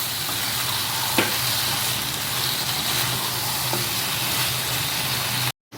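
Goat-head meat in onion-tomato masala sizzling steadily in a kadai of oil, the cooking water now boiled down, over a low steady hum, with a couple of faint ticks. The sound cuts off abruptly just before the end.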